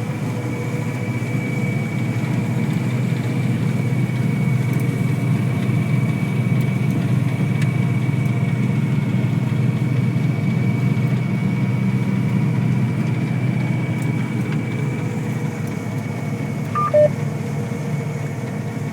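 A combine harvester running steadily, a low drone heard from inside the cab, with a thin steady high tone over it throughout. A short, louder electronic beep sounds once, near the end.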